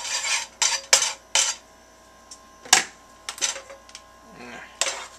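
Metal kitchenware clattering: irregular sharp clinks, knocks and short scrapes as a utensil, a steel saucepan and a frying pan are handled on the stovetop.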